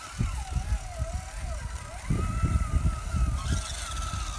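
Electric motor of an RC crawler truck whining, its pitch wandering up and down with the throttle and then holding steady about halfway through, over irregular low rumbling thumps on the microphone.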